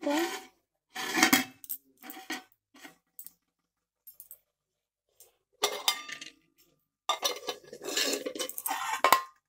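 Aluminium plates used as lids clinking and scraping against aluminium cooking pots as they are lifted off and moved. The metal clatters in several separate bursts, some ringing briefly, and the longest, loudest clatter comes near the end.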